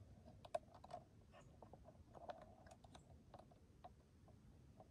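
Near silence broken by faint, irregular light clicks and ticks.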